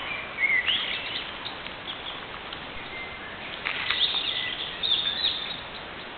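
Wild birds singing: short chirps and whistled phrases in two clusters, about half a second in and again around four to five seconds in, over a steady background hiss.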